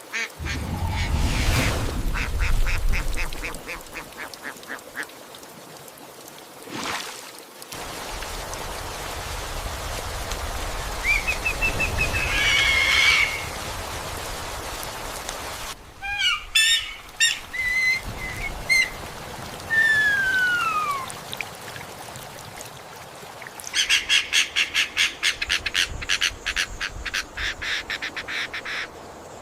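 A series of bird calls over a steady hiss like rain: a fast run of repeated calls at the start, a short trill a little before halfway, clear whistled notes and one falling whistle a little after halfway, and a rapid chattering series near the end.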